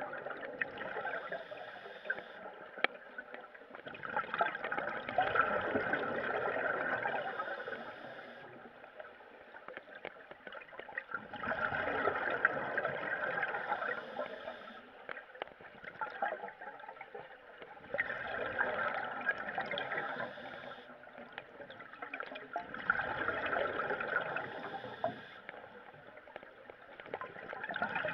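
Scuba regulator exhaust bubbles, heard underwater, bubbling and crackling in swells of a few seconds that come about every five to six seconds, one with each breath out.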